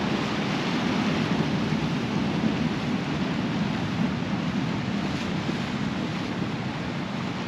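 Sea surf breaking and washing over a rocky shore: a steady rushing noise.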